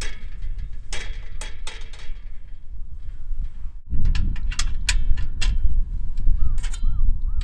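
Metal clicks and clatter as a folding aluminium camp table is assembled: a perforated metal mesh shelf slid into place under the top, then a steel rod side bar fitted to the table's end, with a busy run of clicks about halfway through. A steady low rumble runs underneath and grows louder partway through.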